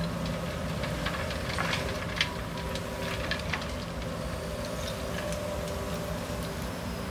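Diesel locomotive engine of a GE B23-7 running steadily with a low rumble and held tones, while scattered clicks and one sharp knock about two seconds in sound over it.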